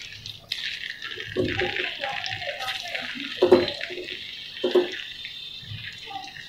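Raw potato sticks sizzling and crackling steadily in lightly warmed oil in a pan, the first low-temperature fry of french fries. Three louder bumps come as more sticks are added by hand, the loudest about three and a half seconds in.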